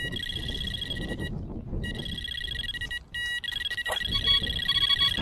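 Electronic carp bite alarm sounding almost non-stop, a fast stream of beeps merging into a steady tone with a break of half a second after the first second and a brief one about three seconds in: a run, a carp taking the bait.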